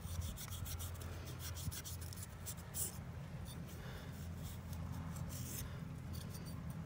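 A knife sawing and scraping through tough blacktip shark skin in faint, scratchy strokes, over a faint steady low hum.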